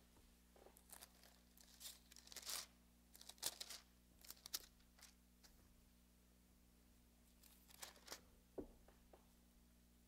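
Faint rustling and crinkling of thin Bible pages being leafed through and turned, in short swishes, most of them in the first half and a few more later on.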